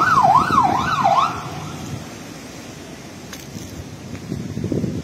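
Fire engine siren yelping, rising and falling about three times a second, then cutting off about a second in. After it comes a low rumble of wind on the microphone, which swells near the end.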